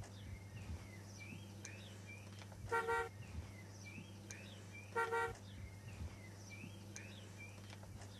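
Two short car horn toots about two seconds apart, over a steady low hum and faint repeated chirps.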